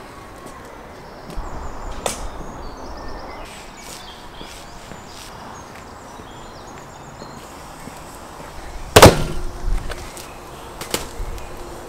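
Quiet outdoor background with a few short knocks of things being handled, then one loud sharp thud about nine seconds in, followed by a couple of lighter knocks.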